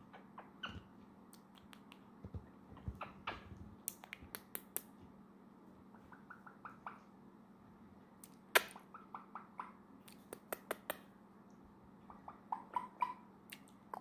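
Red-lored Amazon parrot making a scattered run of soft, sharp clicks, with a few short squeaky chirps near the end.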